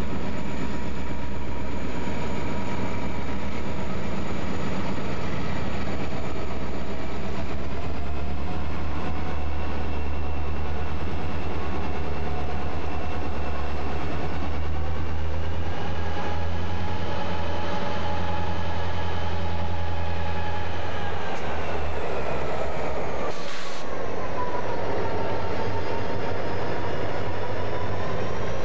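EMD GP35 diesel locomotives, turbocharged V16 engines, passing close under power with a deep steady drone and a high whine that dips and rises in pitch. About three-quarters of the way through, the engine drone fades and the rolling rumble of freight cars takes over, with one brief sharp knock.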